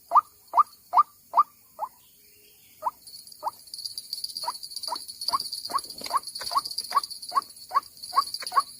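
White-breasted waterhen calling, a long series of short rising 'kook' notes repeated about two to three times a second. The notes break off for about a second, then resume. A steady high-pitched whine runs underneath from about three seconds in.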